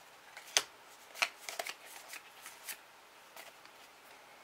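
Trading cards being flipped through by hand, each card slid off the stack and over the others, making a scatter of light clicks and snaps at irregular intervals, the sharpest about half a second in.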